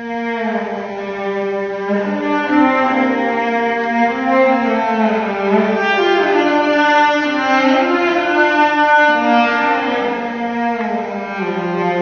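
Solo cello bowed in a slow melodic phrase that comes in right at the start, with held notes and some notes that slide in pitch.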